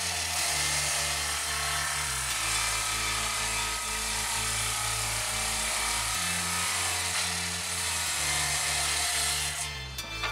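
A power tool working wood, a dense steady hiss that stops near the end, over background music with a bass line that changes note every couple of seconds.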